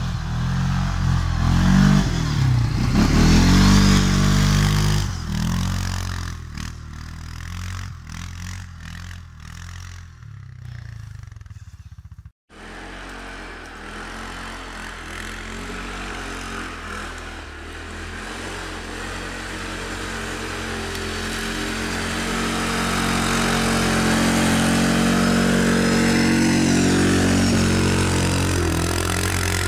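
ATV engine revving as the quad rides toward and past, then fading away; after a sudden cut, an ATV engine grows steadily louder as it approaches and passes close by.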